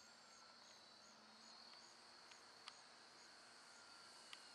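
Near silence: faint outdoor background hiss with a faint, high insect chirp repeating about three times a second.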